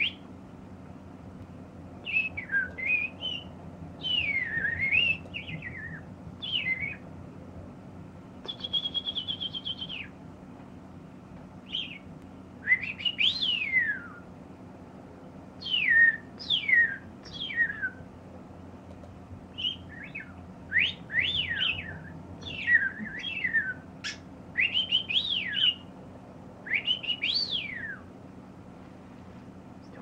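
English budgie (budgerigar) chirping and warbling: clusters of short chirps that sweep up and down, with a brief buzzy trill about nine seconds in, over a steady low hum.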